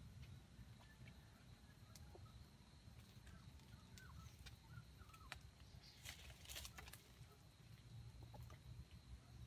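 Near silence: faint forest ambience with a steady thin high tone, a few faint bird chirps about four to five seconds in, and a brief rustle about six seconds in.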